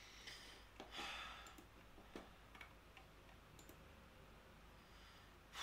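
Near silence: room tone with a few faint, scattered clicks and a soft breath about a second in.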